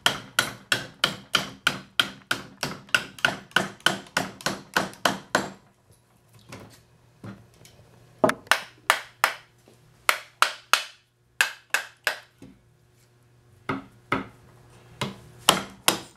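A wooden club strikes the spine of a small fixed-blade knife, driving it through a log to split it: a quick run of sharp wooden knocks, about three a second, for the first five seconds or so, then after a pause further strikes in shorter bursts.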